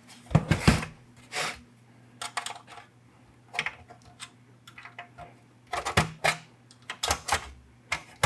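Irregular clicks, snaps and knocks as a panel on a Ford car radio's casing is pried upwards and popped free, with a few louder knocks among lighter ticks.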